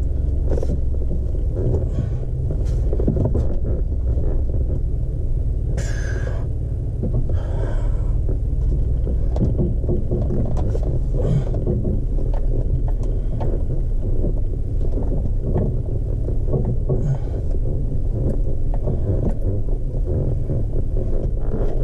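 Chevy Colorado ZR2 heard from inside the cab while it drives slowly over a dirt and rock trail: a steady low rumble of engine and tyres, with scattered small knocks and clicks. There are two brief louder rattling bursts about six and seven and a half seconds in.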